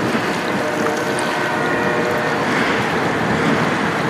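Steady mixed noise of a tugboat running past with its bow wake splashing, blended with wind on the microphone and train noise in the background; a few faint steady tones run through it.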